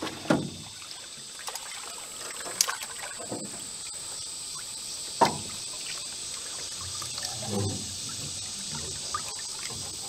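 Water splashing and trickling as a blue catfish thrashes in a landing net and is lifted out of the water, with a few sharp knocks.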